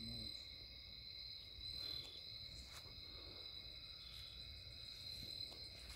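Faint, steady night chorus of crickets, with a low rumble underneath.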